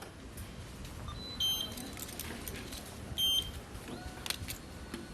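Short high electronic beeps, twice about two seconds apart, over a low steady background, with a few sharp clicks near the end.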